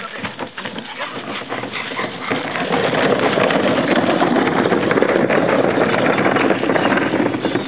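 Plastic wheelie bin being wheeled along, its wheels rumbling and rattling over the road and gravel, loud and steady from about three seconds in.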